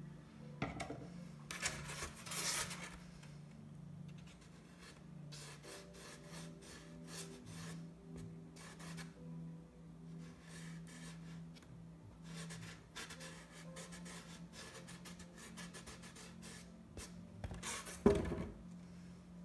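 Paintbrush working paint onto a painting board: a long run of short, scratchy dabbing and rubbing strokes, with a louder knock near the end.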